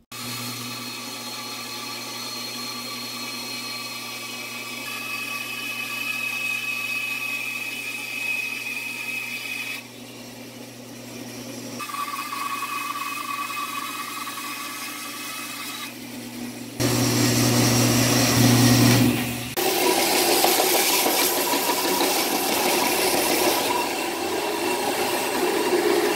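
Bandsaw running with a steady motor hum while it cuts a thick ash axe-handle blank. The sound changes abruptly a few times, and from about 17 seconds in a louder power tool with a dense rasping noise takes over.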